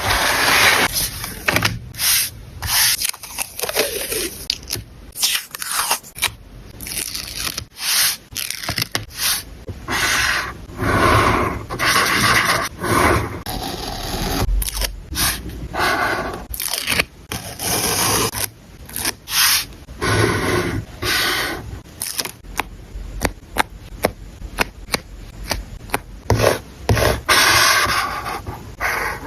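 Close-up paper-crafting sounds on a journal spread: a string of scrapes and crackles of paper and sticker sheets being handled, with many short sharp clicks.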